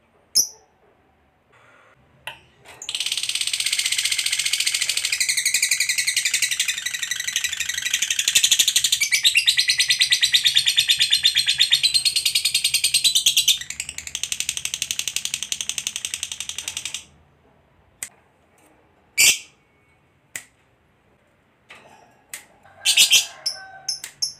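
Lovebird giving a long 'ngekek': a rapid, unbroken high-pitched chattering trill lasting about fourteen seconds. A few single sharp chirps follow near the end.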